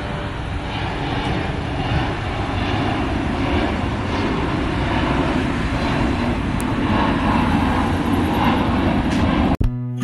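Jet airliner climbing away overhead after takeoff, its engines making a steady rushing noise that cuts off suddenly near the end, where acoustic guitar music begins.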